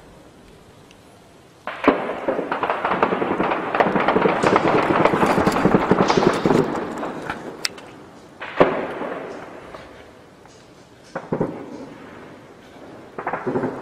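Heavy gunfire: a sudden burst about two seconds in turns into a dense crackle of rapid shots lasting about five seconds, followed by single loud reports with echoing tails about nine and eleven seconds in and a short cluster of shots near the end.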